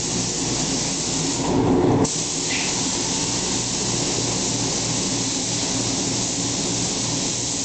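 Steady hiss over a low mechanical hum from paint-shop air machinery running. It turns briefly louder and duller about one and a half to two seconds in.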